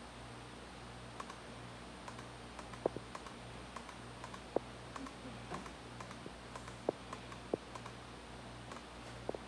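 Laptop keys pressed and clicked at an irregular pace, a handful of sharper clicks standing out among lighter taps, over a low steady hum.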